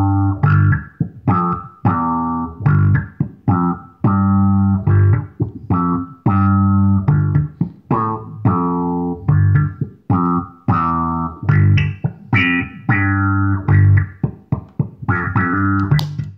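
Electric bass guitar playing a repeating riff through a filter effects pedal: a run of sharply struck notes, some clipped short and some held, with the upper tone opening and closing from note to note.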